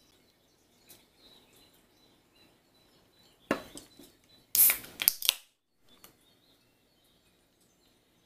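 Aluminium can of non-alcoholic beer being opened: a sharp click of the pull tab about three and a half seconds in, then about a second later a loud crack and short fizzing hiss as the carbonated drink vents.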